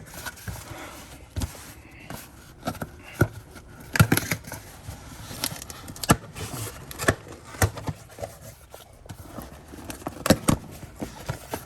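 A parts box being opened and its contents and packaging handled: irregular scrapes, sharp clicks and knocks, with rustling in between.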